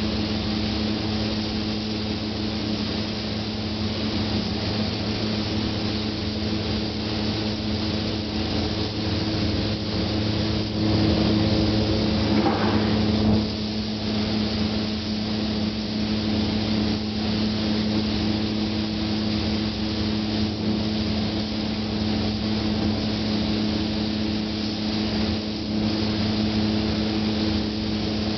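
Spray-painting equipment running steadily while clear coat is sprayed: an even motor hum with a hiss over it. About halfway through it briefly gets louder, with a wavering higher tone.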